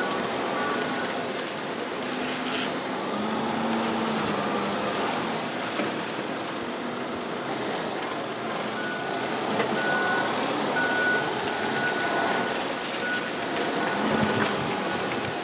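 Forklift engines running and revving as the machines move about, with a backup alarm beeping a single high tone a little more than once a second, briefly at the start and again for several seconds in the second half.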